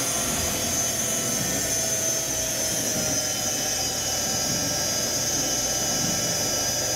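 Ewag RS12 grinder's wheel spindle running under power, a steady machine hum with a high whine that drops a little in pitch about two to three seconds in as the variable spindle speed is turned down, then holds steady.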